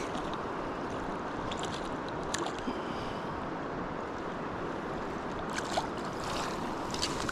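Steady rush of flowing river water, with a few faint clicks scattered through.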